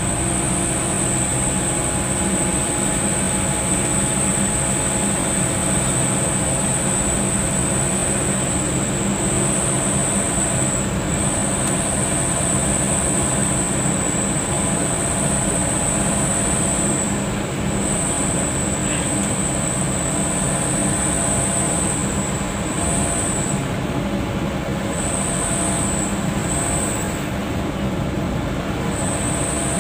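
Steady engine drone and road noise inside a moving car's cabin at cruising speed, with a high thin hiss that drops out briefly several times.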